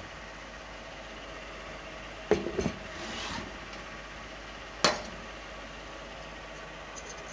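Stainless-steel bowls and plates knocking and clinking as they are handled: a short cluster of knocks about two and a half seconds in and a single sharp clink with a brief ring near five seconds. A steady background noise runs underneath.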